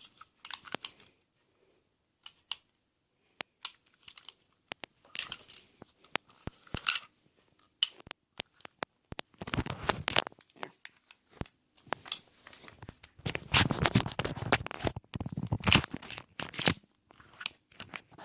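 Handling sounds from an airsoft CO2 pistol being picked up and worked: scattered sharp clicks and knocks, with longer stretches of rustling about halfway through and through much of the second half.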